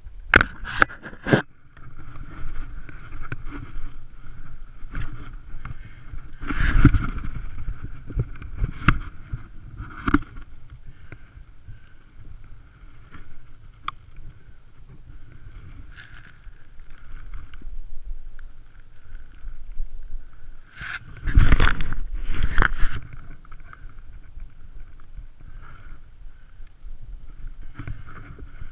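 Irregular rustling, scuffing and knocking of a person moving on foot through brush while stalking, with louder clusters near the start, about seven seconds in, and around twenty-one to twenty-three seconds in.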